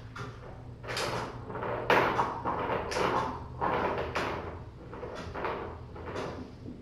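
Kittens playing on a hard floor: irregular scuffling, scraping and light thumps of paws and bodies against the floor and a toy, the loudest about two seconds in.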